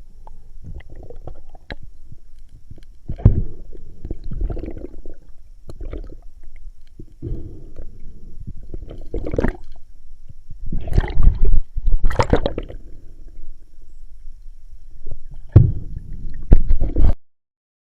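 Muffled water gurgling and bubbling picked up by a camera underwater, coming in irregular surges. It cuts off abruptly near the end.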